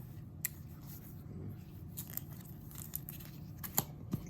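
A few sharp light clicks and taps from handling trading cards and their packaging, over a low steady hum.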